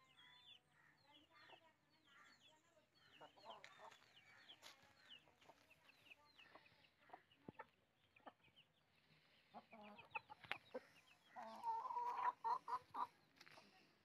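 Chickens clucking, faint at first with many short, high chirps and a few clicks, then a louder run of clucks about eleven to thirteen seconds in.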